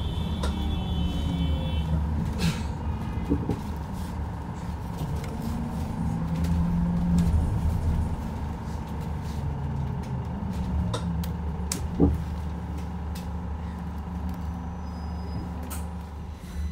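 Inside a Yutong E10 electric bus on the move: low road rumble under a steady high electric hum, with scattered rattles from the interior. A brief high tone sounds at the start, and a single sharp knock comes about twelve seconds in.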